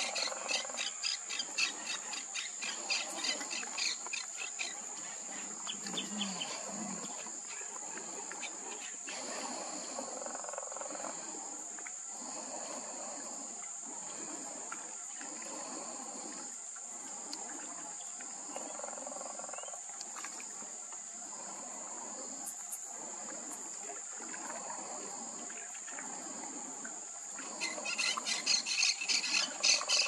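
Steady high-pitched insect drone, with a fast train of repeated high calls over the first few seconds and again near the end.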